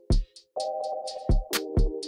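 Electronic background music: a steady kick-drum and hi-hat beat under held synth chords, which drop out briefly and come back on a new chord about half a second in.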